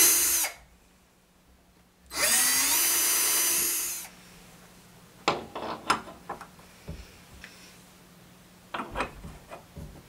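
Cordless drill boring pilot holes into a wooden door: a short burst at the start, then about two seconds of drilling with the motor spinning up. Afterwards come a few light clicks and knocks as a metal backplate is handled against the door.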